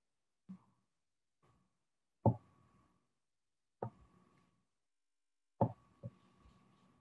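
Faint, irregular knocks of a colored pencil tapping down onto paper on a hard desk as it is worked in short shading strokes: about six sharp taps, the loudest a little past two seconds in, some leaving a brief faint ring.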